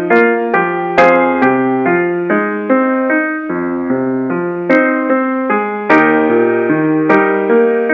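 Piano accompaniment playing a slow instrumental passage of broken chords, with a new note or chord struck about every half second and each one fading.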